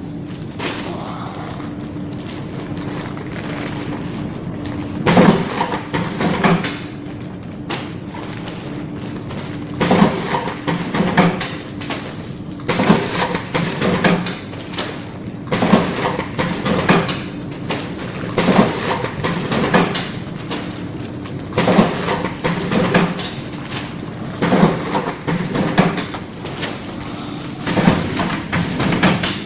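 Automatic bread bag clipping machine running with a steady hum. From about five seconds in, a short burst of mechanical noise with a couple of knocks comes about every three seconds, one for each bag it clips.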